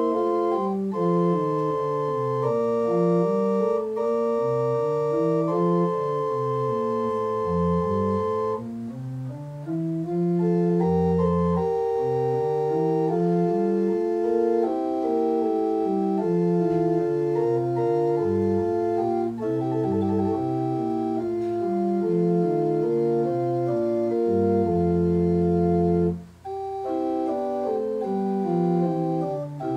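Church organ playing an instrumental piece: held chords over a bass line that steps up and down, with a short break between phrases about 26 seconds in.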